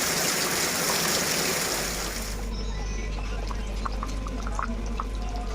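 Steady hiss of heavy rain, cutting off abruptly about two and a half seconds in, then light background music with short separate notes.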